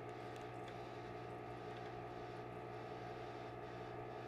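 Faint steady hum of several constant tones, with a few light clicks from handling the clear sight tube and the brass test-cock fittings.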